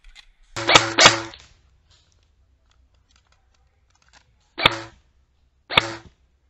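Airsoft rifle firing four shots: two in quick succession under a second in, then two more about a second apart near the end, each a sharp crack with a short ringing tail.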